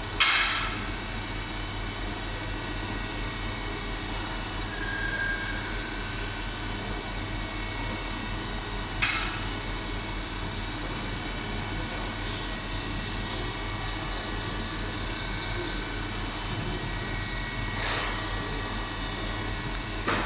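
CNC milling machine running, its spindle and end mill cutting a circular interpolation (G2) to enlarge a bored hole: a steady machine hum with several fixed whining tones. Three short bursts of noise come about nine seconds apart.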